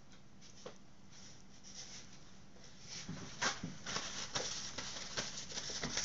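Light clicks and taps of kitchen handling as hands work over a pizza on its pan. There is quiet room tone at first, then a quick run of taps starting about three seconds in.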